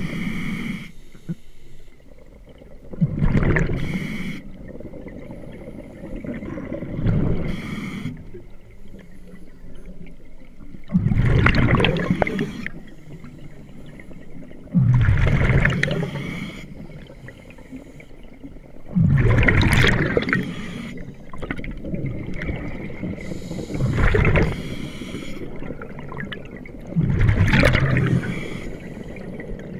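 A scuba diver breathing through a regulator underwater. Exhaled bubbles rush out in a loud gurgling burst about every four seconds, with quieter stretches between breaths.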